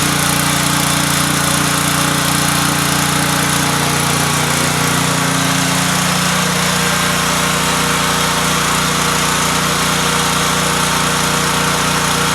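Gasoline engine of a brand-new DeWalt 3600 psi pressure washer running steadily at constant speed on its first start. No water is flowing through the pump yet.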